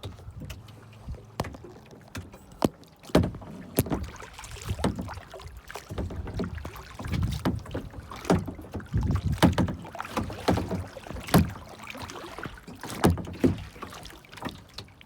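Kayak paddling: water splashing and swishing with the paddle strokes, with many sharp knocks in between.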